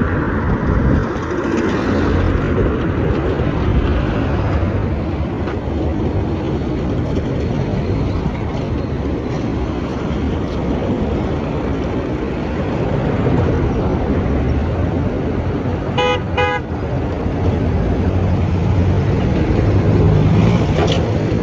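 Steady road-traffic and vehicle noise, with a vehicle horn giving two short toots about three-quarters of the way through.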